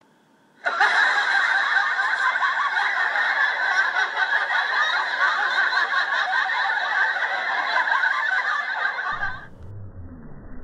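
Laughter sound effect: a group laughing and snickering, which starts abruptly about a second in and cuts off near the end. A faint low rumble is left after it.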